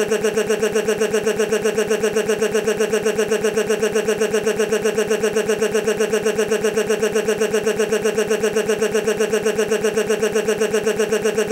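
Digital audio glitch: a tiny fragment of sound stuck in a loop, repeating about six times a second as a steady, loud buzzing stutter with a fixed pitch.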